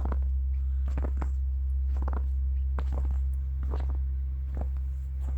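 Footsteps crunching in fresh snow at a steady walking pace, about one step a second, over a steady low rumble.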